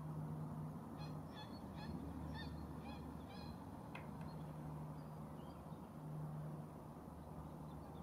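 Distant waterfowl on a lake calling: a quick series of about eight short, pitched calls starting about a second in and lasting a couple of seconds, over a steady low rumble.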